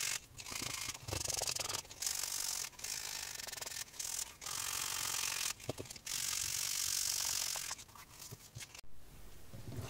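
Waterproof sandpaper rubbed back and forth along the cut edge of a piece of chrome-tanned leather: stretches of hissing scraping, each about a second long, broken by short gaps. Near the end it drops to a few light handling ticks.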